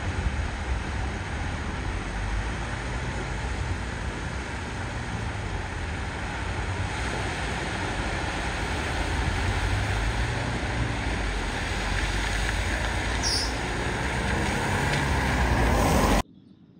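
A vehicle driving through deep floodwater: engine running under a steady rush of water, growing louder toward the end before cutting off abruptly.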